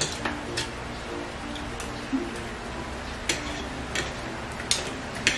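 Metal spoons and forks clinking against ceramic plates while eating, with scattered sharp clinks about once a second.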